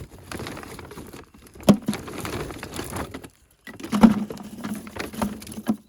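Dry dead branches and twigs being loaded into a bin: a run of woody knocks and clatter over the rustle of brittle twigs, with the loudest knock about four seconds in and two short gaps of silence.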